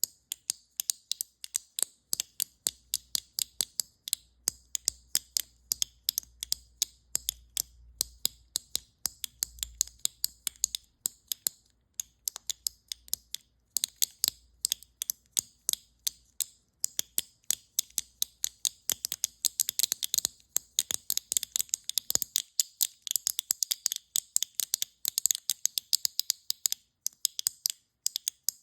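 Close-up ASMR clicking: a continuous run of short, sharp, crisp clicks, about three to four a second in an uneven rhythm.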